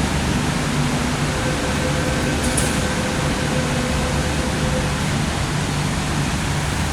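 MTR Kwun Tong Line Q-Train running through the tunnel, heard from on board: a steady rumble and hiss with a few faint steady tones.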